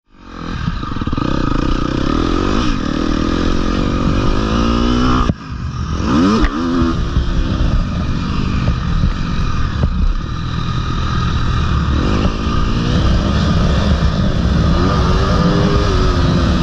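Husqvarna FC250 four-stroke single-cylinder motocross engine revving up and down under riding, heard close up from the bike, its pitch rising and falling repeatedly. The sound fades in at the start and breaks off for a moment about five seconds in.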